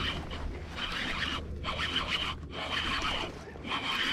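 Baitcasting reel being cranked, its gears giving a whirring, zipper-like sound in runs that stop briefly twice about one and a half and two and a half seconds in, as a hooked bass is wound in.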